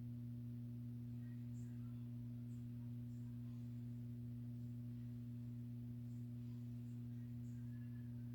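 A steady low hum made of two pure tones that never changes, with a few faint, scattered high chirps over it.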